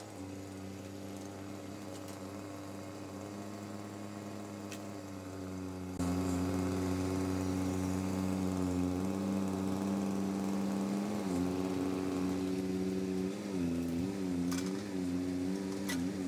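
An engine running steadily. About six seconds in it gets suddenly louder, and near the end its pitch dips and recovers a few times as it takes load.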